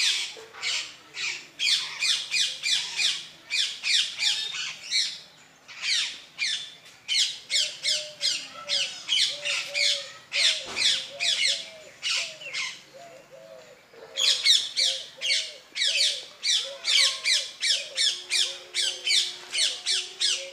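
Birds giving harsh squawking calls in rapid runs of about three or four a second, broken by short pauses.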